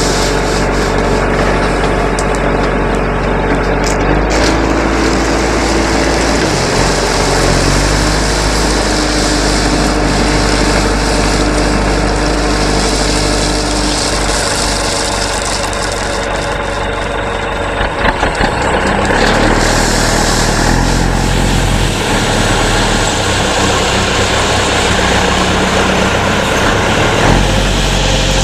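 Earth-moving machine's diesel engine running steadily, its pitch shifting a few times as it works under changing load, with a few knocks about two-thirds of the way through.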